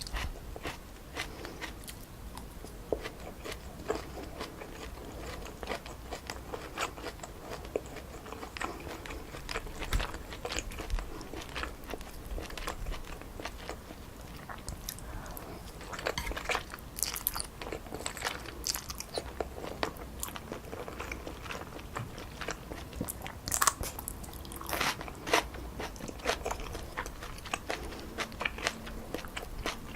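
Close-miked chewing of stir-fried wide glass noodles with pork neck and vegetables: a steady run of small wet mouth clicks and smacks, with a few louder ones in the second half.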